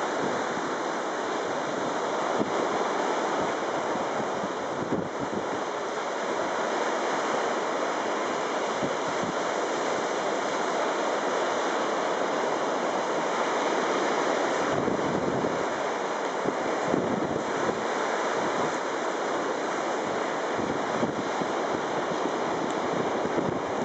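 Steady wash of small waves breaking on a pebble beach, mixed with wind rumbling on the microphone.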